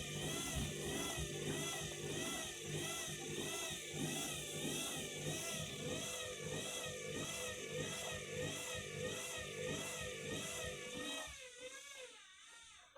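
Washing machine spinning a tangled load of bedding far out of balance, the motor's whine wavering up and down in pitch about twice a second as the drum labours; the sound dies away near the end.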